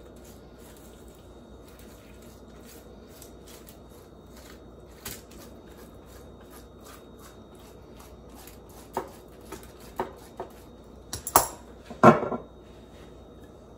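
Faint dabbing and scraping of a silicone pastry brush on cabbage steaks in a foil-lined sheet pan. A few light knocks come in the second half, then two louder clatters near the end as the brush is set down on a plastic cutting board and a glass oil bottle is picked up.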